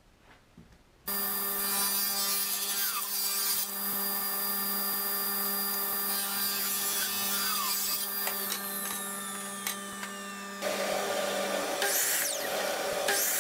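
A table saw starts up abruptly about a second in and runs with a steady hum while a strip of wood is fed along the fence and ripped. Near the end, a Ridgid miter saw cuts through a small piece of wood.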